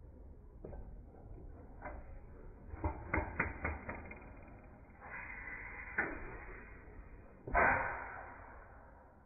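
Slowed-down sound of an antique stationary gas engine running, its valve gear and firing drawn out into muffled, scattered knocks and thumps, the loudest about seven and a half seconds in.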